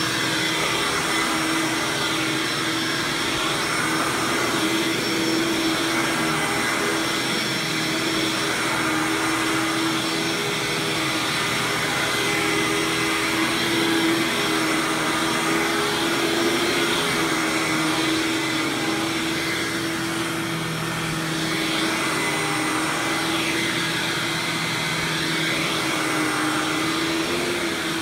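Hoover WindTunnel Supreme U5458-900 upright vacuum running on its 12-amp Maytag-era motor, with the brush roll turning as it is pushed across carpet. It runs smoothly, a steady motor hum whose pitch wavers slightly now and then.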